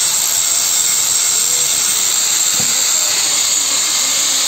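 Handheld electric angle grinder running with its disc against stone, a loud, steady hiss that does not let up.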